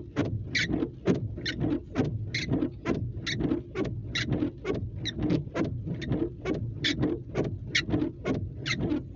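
Windshield wipers sweeping across wet glass, heard from inside the car: the rubber blades squeak and chatter on each pass, in an even rhythm with a sharper squeak about once a second. Under it is a low steady rumble.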